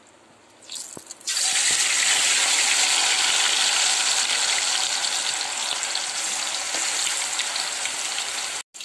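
Marinated chicken leg pieces deep-frying in hot oil in an aluminium kadai, sizzling loudly. The sizzle starts suddenly about a second in as the chicken goes into the oil, holds steady, and cuts off suddenly near the end.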